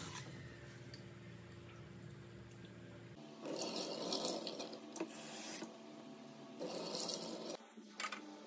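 Water splashing in a stainless-steel sink as a bowl of mung beans is rinsed. Tap water runs into the bowl at the start, then the rinse water is poured off into the sink in a few splashes.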